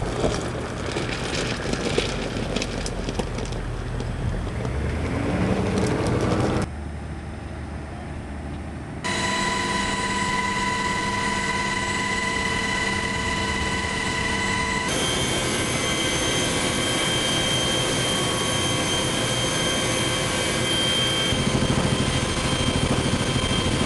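Military helicopter in flight heard from inside the cabin: steady turbine whine over rotor noise, in several clips joined by abrupt cuts.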